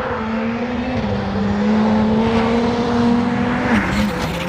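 Race car engine sound, running at steady high revs, with a slight dip in pitch about four seconds in.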